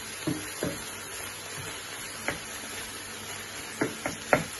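Ground meat and onions frying with a steady low sizzle in a pan, stirred with a wooden spatula. Several short taps and scrapes of the spatula against the pan, three close together near the end.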